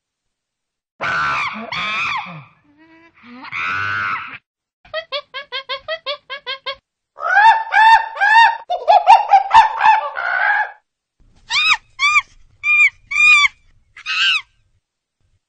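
Bird-like calls: separate groups of squawks and calls, including a fast run of short repeated notes and, near the end, short high chirps, with clean silence between the groups.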